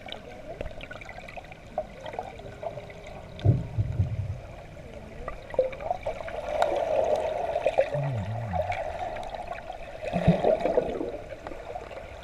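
Muffled underwater sound of a swimming pool picked up by a submerged camera: gurgling water and bubbles, with a few low bumps and swells, the loudest about a third of the way in and again near the end.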